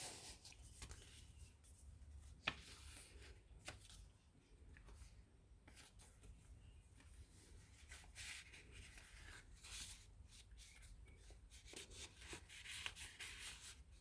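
Faint rustling and rubbing of paper as a handmade junk journal's pages and envelope are handled. There is a sharp tick about two and a half seconds in, and louder rustles later on.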